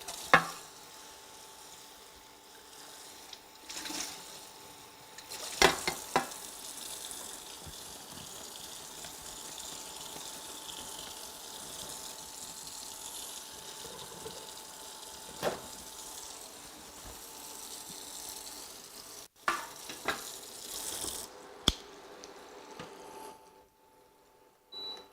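Floured chicken pieces frying in hot olive oil in a pan, a steady sizzle with a faint steady tone underneath. Utensils knock against the pan a few times: at the start, around four to six seconds in, and several times near the end.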